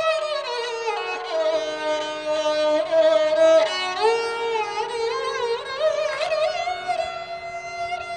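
Sarangi bowed solo: a melody of long sliding notes with quick wavering ornaments, falling in pitch about a second in and climbing again around six seconds, over a faint steady ringing.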